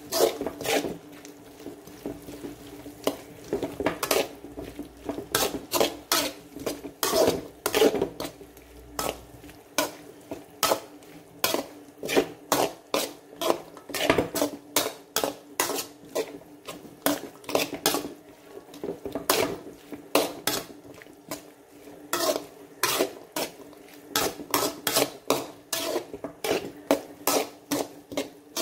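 A stirring utensil knocks and scrapes against a pan in irregular clinks, about one to two a second, as onions, tomatoes and garlic are sautéed in oil. A steady low hum runs underneath.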